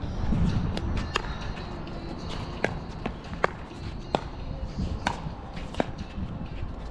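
Pickleball paddles hitting the plastic ball in a fast rally at the net: a string of sharp pops with a short ring, about one every half second to a second, some louder than others.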